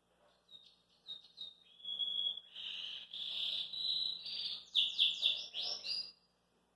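Domestic canary singing one song phrase: a few soft short notes, then long rolling trills, ending in a run of quick sweeping notes that stops about six seconds in.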